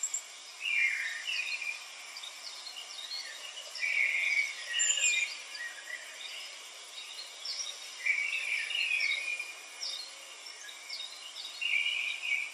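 Birds chirping and twittering in short bouts, roughly every four seconds, over a steady hiss.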